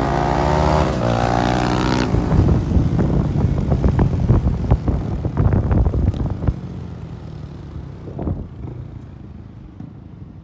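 Motorcycle engine accelerating, its pitch rising over the first two seconds. Then a rough, uneven rumble that fades away over the last few seconds.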